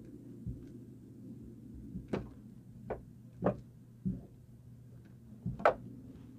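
Small plastic toy figure and toy food pieces handled by hand: about six light clicks and knocks, the loudest near the end, over a faint steady low hum.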